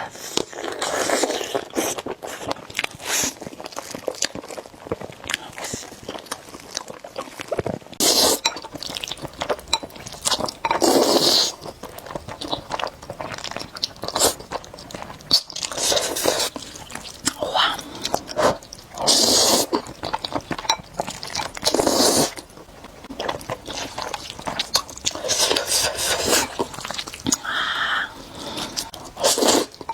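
Close-miked eating of spicy noodle soup with eggs: chewing and biting mouth sounds with many small clicks, broken by several louder noisy bursts about a second long.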